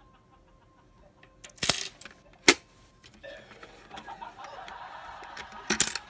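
Yen coins being pushed into a green plastic coin-sorting bank: sharp clicks and clinks of metal on plastic, two loud ones in the first half, then a steady rattle from about three seconds in and a cluster of clinks near the end.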